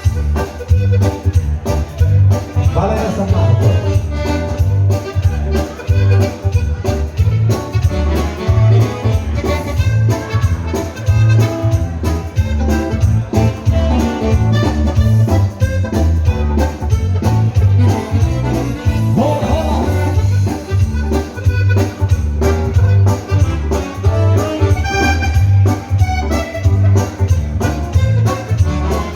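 Ballroom dance music led by an accordion over a steady, even bass beat.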